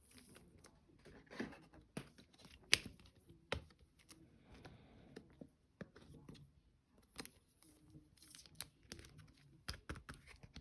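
Trading cards and their packaging being handled at close range: faint, scattered rustles, crinkles and light clicks and taps.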